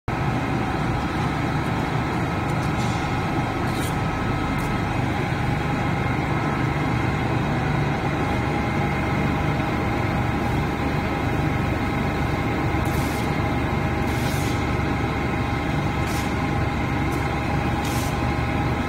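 Sandpaper-to-flannel laminating machine running with a steady mechanical hum and drone, broken by several short hisses.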